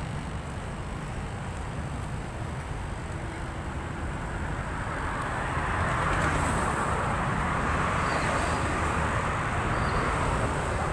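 Road traffic rumbling steadily, growing louder about halfway through.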